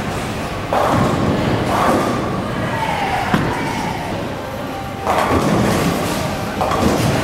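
Bowling alley clatter: a Radical Grease Monkey bowling ball rolls down the lane and crashes into the pins, with loud impacts about a second in and about five seconds in.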